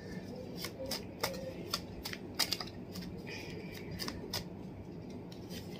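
A tarot deck being shuffled by hand, the cards snapping and slapping together with sharp, irregular snaps about every half second.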